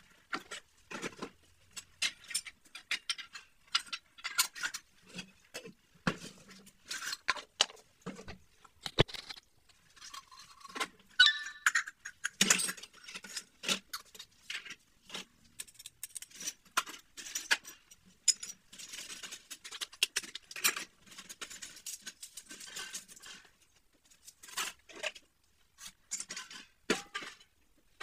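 Ceramic dishes, cups and cutlery clinking and knocking against one another and the plastic basket as a dish-drying rack is emptied and the dishes stacked, in an irregular run of light clatters.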